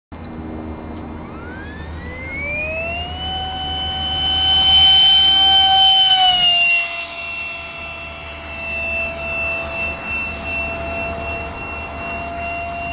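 RC jet's electric ducted fan spooling up with a rising whine, then holding a steady whine at full throttle. About five seconds in the whine is at its loudest, with a rush of air, as the jet passes close on its takeoff run. It drops slightly in pitch as the jet goes by, then holds steady as it climbs away.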